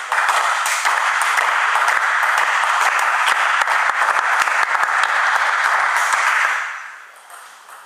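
Spectators applauding, a dense patter of many hands clapping that fades away about six and a half seconds in.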